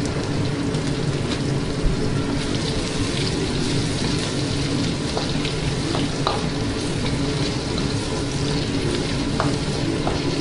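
Crushed garlic and scallions sizzling steadily in tocino frying oil in a stainless steel wok, with a few light taps of a wooden spatula.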